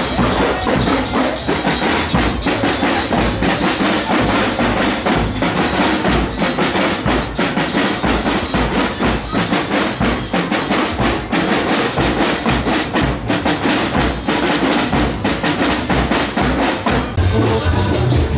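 Snare drums and a bass drum of a marching band playing a steady, fast drum cadence, with the horns mostly resting. About a second before the end, different music with steady low bass notes comes in.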